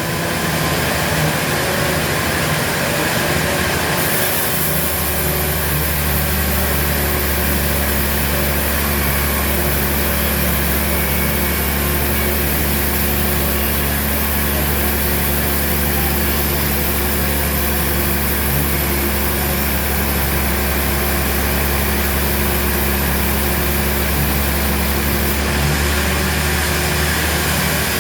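Sawmill machinery running steadily: a loud, continuous engine-like drone. A deeper hum comes in about four seconds in and drops away near the end.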